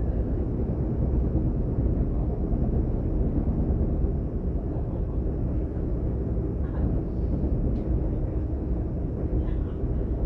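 Class 422 electric multiple unit running at speed, heard from inside the passenger car: a steady low rumble of wheels and running gear with faint steady traction tones.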